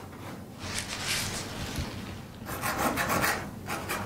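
Paintbrush scrubbing wet oil paint across the painting surface in a few rubbing strokes, blending colours.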